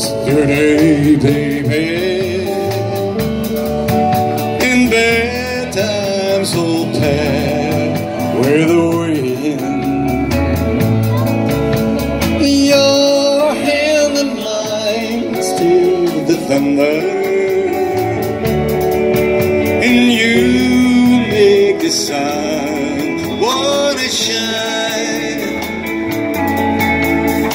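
Live band playing a country song on electric guitars and drum kit.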